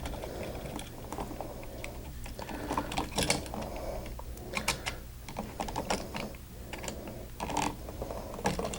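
Screwdriver tightening a wire's terminal screw on a wall switch: irregular small clicks and taps of the tool and the switch being handled.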